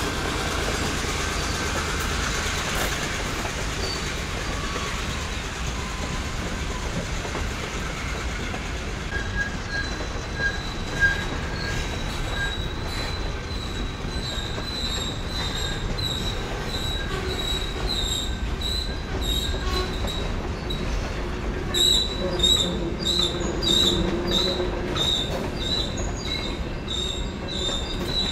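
Covered hopper cars of a freight train rolling past on jointed track, wheels rumbling on the rails. From about ten seconds in a thin high wheel squeal rings over the rumble, and in the last several seconds wheels click repeatedly over rail joints.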